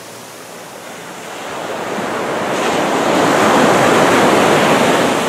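Small ocean waves breaking and washing up the sand at the water's edge. The rush of surf swells to its loudest about three seconds in, then eases off near the end.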